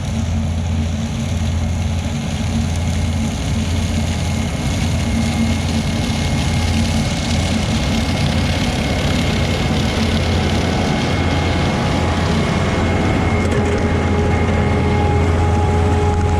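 Kleine SF10.2 sugar beet harvester's Volvo diesel engine running steadily with a deep hum, slowly getting louder, with a thin steady whine above it.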